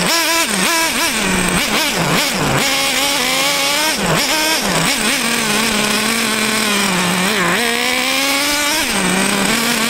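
Small engine of a radio-controlled car revving hard as it speeds around, its pitch repeatedly rising and falling, holding steady for a few seconds in the middle and dipping briefly near the end.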